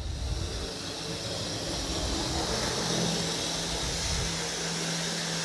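Bachmann HO-scale Santa Fe EMD F9 model locomotive running at full power, with its motor and the wheels on the rails making a steady, loud running noise. The noise swells in the first second, and a low hum joins about three seconds in.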